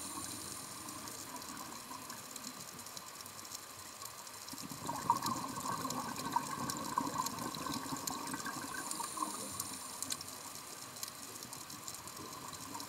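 Underwater sound of a scuba diver breathing through a regulator: a gurgling rush of exhaled bubbles from about five to nine seconds in, over a faint steady crackle.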